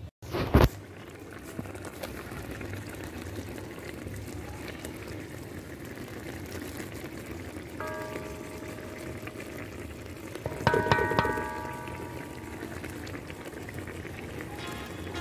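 Creamy shrimp sauce with fish simmering in a pan, a steady soft bubbling. A sharp knock comes about half a second in, and a brief pitched tone sounds twice, the louder one about eleven seconds in.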